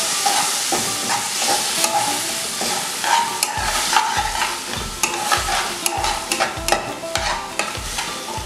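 Onions and whole spices frying and sizzling in ghee in a pan, moistened with mutton stock as the masala starts to stick, while a spatula stirs and scrapes them in quick strokes. In the second half, a low knock comes with each stroke, about twice a second.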